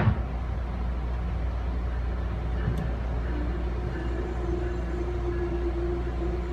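Running noise heard aboard a moving Amfleet passenger coach: a steady low rumble of wheels on rail, with a sharp knock at the start and a lighter one partway through. A steady humming tone comes in about three seconds in and holds.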